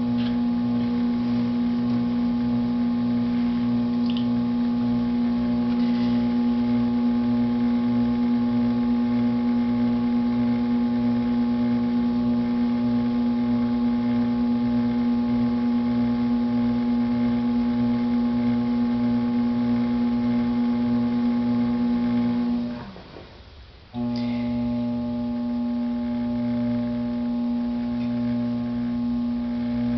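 Electric potter's wheel motor running at steady speed while a clay decanter is thrown: a constant pitched hum with a slight pulse about twice a second. Near the end it fades away briefly and cuts back in suddenly at the same pitch.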